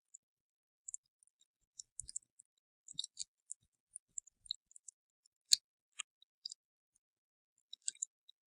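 A scattered series of light, crisp clicks and ticks, irregularly spaced, with one sharper click about halfway through.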